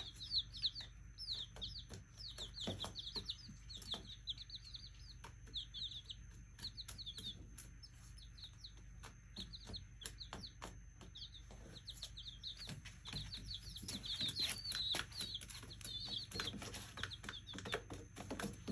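A small flock of baby chicks peeping: a continuous stream of rapid, short, high-pitched chirps that grows busier in the last few seconds, with scattered light clicks and taps.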